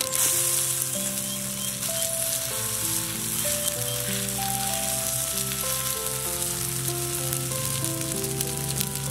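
Maggi noodle and egg omelette batter sizzling steadily as it fries in a hot pan, over background music with a slow stepping melody.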